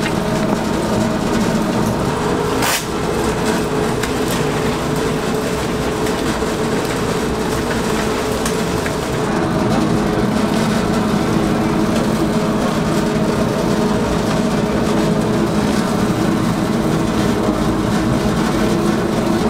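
Electric mixer motor running steadily as its beater churns thick fish-cake paste in a stainless steel bowl, with a layered mechanical hum. One sharp click comes about three seconds in.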